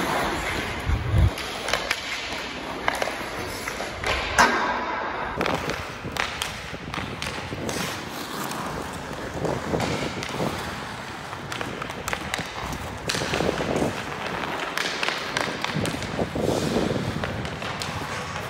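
Ice skate blades scraping and carving on rink ice, with repeated knocks from a hockey stick and puck during stickhandling.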